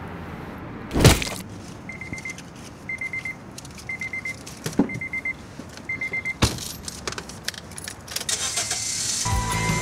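A single heavy blow about a second in, the tire iron striking. Then a car's warning chime with the key in the ignition: five short runs of rapid beeps, about one a second, with a couple of clicks and a thump, before music comes in near the end.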